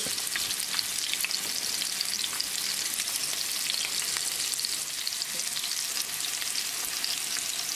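Sockeye salmon fillets frying in olive oil, with lemon juice boiling in a second hot pan: a steady sizzle with fine crackling.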